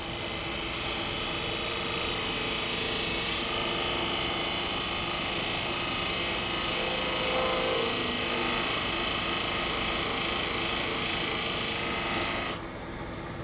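D-Way beading tool cutting a bead into wood spinning on a lathe: a steady scraping of the cutter shearing the wood, which stops abruptly about a second before the end, leaving the lathe's running hum.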